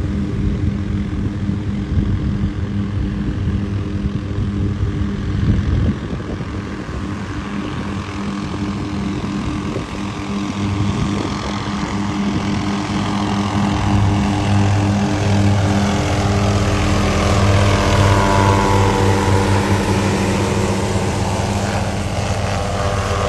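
MD 530G light helicopter flying low over the water: steady rotor beat and turbine whine, growing louder through the second half as it comes close, with the pitch sliding down near the end as it passes.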